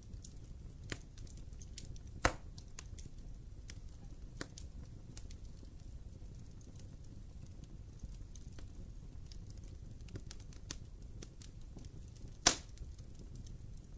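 Wood fire burning in a fireplace: a low steady rumble of flames with frequent small crackles and two loud sharp pops, about two seconds in and near the end.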